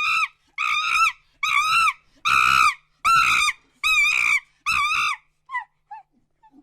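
An animal giving seven loud, shrill, high-pitched calls in a row, each rising and falling, about one and a half a second, followed by two short faint calls near the end.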